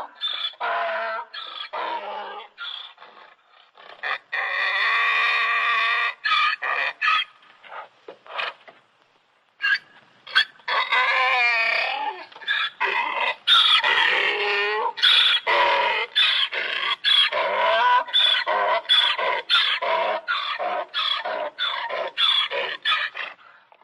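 Donkey braying: a few short calls, then a long held call, then a long run of quick rhythmic brays at about two a second.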